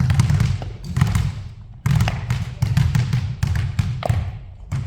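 Basketball dribbled on a hard court: quick repeated bounces, several a second, with a brief pause about one and a half seconds in.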